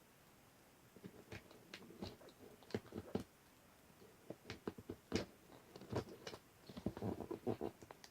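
Cardboard box and packaging being handled and cut open: irregular small clicks, scrapes and crinkles.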